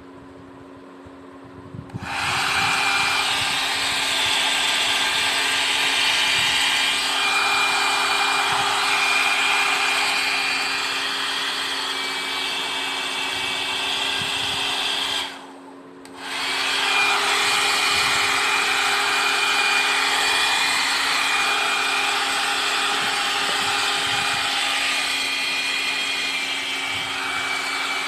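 Kemey KM-6830 electric hair dryer running with a steady motor whine and rush of air. It is low for the first two seconds, then comes up to full. About halfway through it drops away for about a second, then comes back up.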